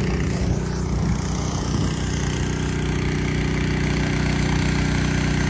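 Small petrol engine running steadily at one speed, typical of a petrol pressure washer, under the hiss of the water jet spraying a dirt bike. The spray hiss thins about half a second in and comes back from about two seconds.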